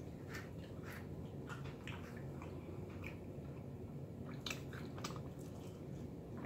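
A person chewing pizza with faint, scattered mouth clicks and smacks, a few of them bunched together about four and a half seconds in.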